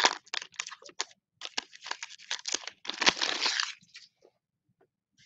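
Foil wrapper of a trading-card pack being torn open and crinkled as the cards are pulled out: a run of crackling rustles, loudest about three seconds in, that stops about four seconds in.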